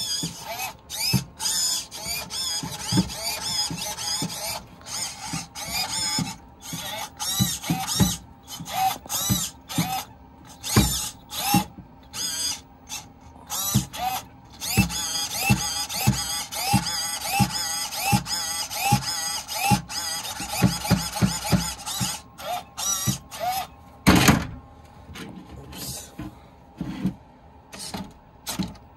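Suspension servos of a Redcat lowrider RC car whining in quick repeated bursts as the car is raised, dropped and hopped by remote control. Short rising and falling whines alternate with knocks of the car settling onto the table, with one louder knock near the end.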